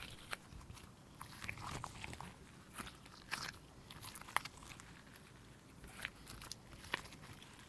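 Slime being squished and pressed by hand, giving faint, irregular sticky clicks and crackles.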